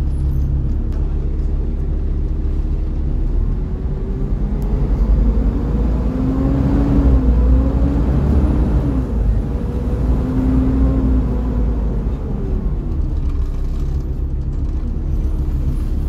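Volvo B7TL bus's D7C diesel engine and ZF Ecomat automatic gearbox pulling under load, with a low rumble and a whining note. The pitch rises, drops back, rises again and then falls away, loudest about halfway through.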